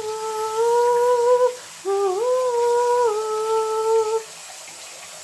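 A solo voice singing two long held 'oh' notes with almost no accompaniment, the second stepping down in pitch partway through.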